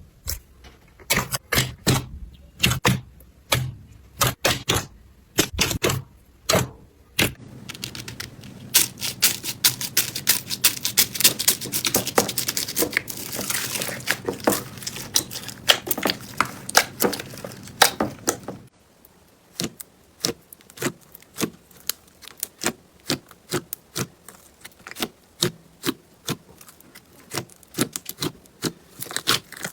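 Slime being squeezed and pressed by hand, giving sharp crackles and pops. The crackling is spaced for the first few seconds, turns dense and continuous from about seven seconds in, then thins again to separate clicks from about eighteen seconds in.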